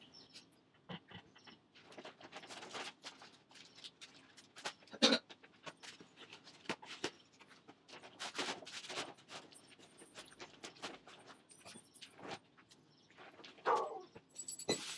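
Quiet, scattered light clicks, knocks and rustles of vegetables and kitchen things being handled on a counter while produce is cleaned for juicing.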